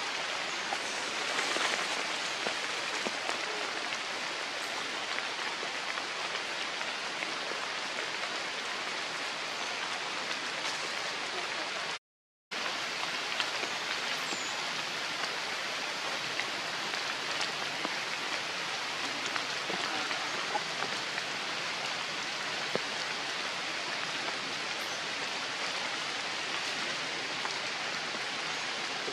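Steady rain falling on forest leaves, an even patter with scattered drop ticks, which cuts out for about half a second near the middle.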